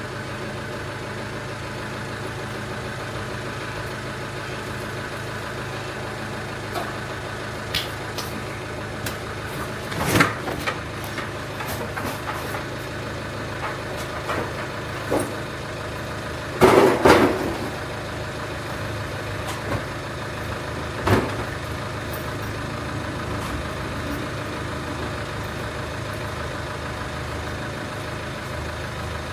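A steady machine hum, like an engine running at idle, with a few short knocks and clatters, the loudest about two-thirds of the way in.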